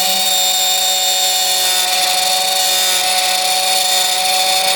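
Computerized key cutting machine running, its spindle motor giving a steady whine while the cutter mills a key blank.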